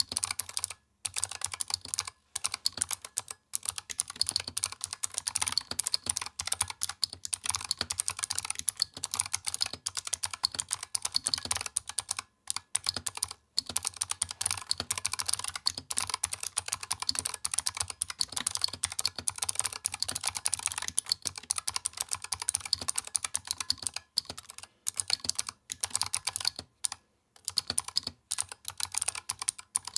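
Fast, continuous typing on a Razer Huntsman Mini keyboard with Razer optical clicky switches and PBT doubleshot keycaps: a dense stream of sharp key clicks, broken by a few short pauses.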